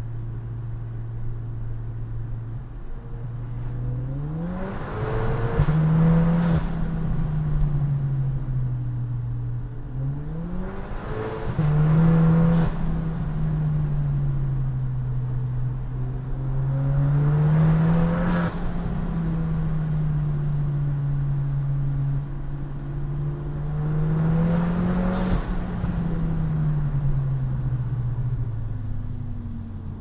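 Audi A3 engine and exhaust under repeated acceleration: the engine note climbs four times, about every six seconds, easing back between. A brief louder burst of noise comes at the top of each climb.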